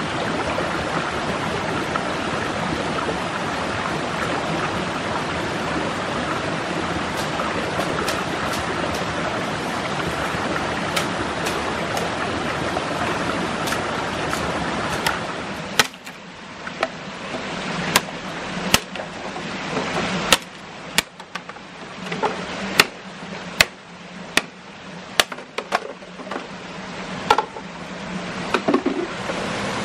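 Steady rush of stream water. About halfway through the water noise falls away and a dozen or so irregular sharp knocks follow, before the rush of water returns near the end.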